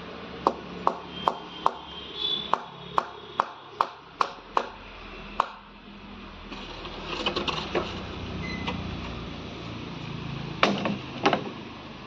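Hammer blows: a steady run of about a dozen sharp strikes, a little over two a second, stopping about five seconds in, then two more strikes near the end.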